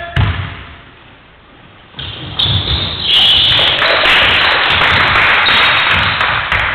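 Basketball game noise in a sports hall. A single thud of the ball, then about a second and a half of quiet, then a steady, loud wash of hall noise with a few thuds from the ball and players' feet on the wooden floor.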